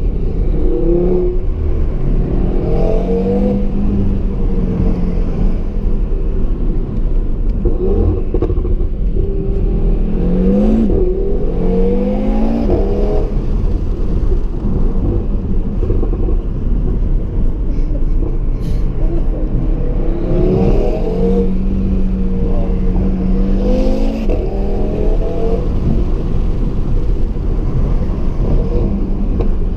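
2017 Audi TT RS's turbocharged 2.5-litre inline five-cylinder engine under hard acceleration, its pitch climbing through the revs in three spells, with steadier running and a constant low road rumble in between.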